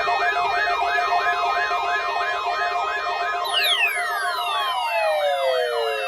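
Electronic siren-like wail sweeping up and down about three times a second over steady tones, with a long falling whistle joining about three and a half seconds in.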